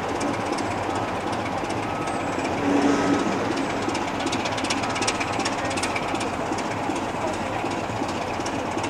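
BR Class 27 diesel locomotive's Sulzer six-cylinder engine idling steadily while the locomotive stands at the platform.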